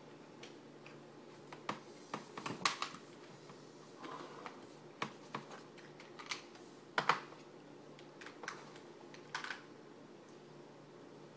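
Irregular light clicks and taps of small objects being handled on a wooden desk, about ten knocks scattered unevenly, the loudest a little after two seconds and at about seven seconds, over a steady low hum.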